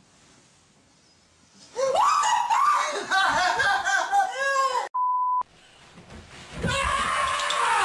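A person screaming and shrieking in high, wavering bursts, cut off by a steady censor bleep about five seconds in. Near the end, a loud crash and clatter as a body falls onto a rug of mousetraps, snapping them, with more yelling.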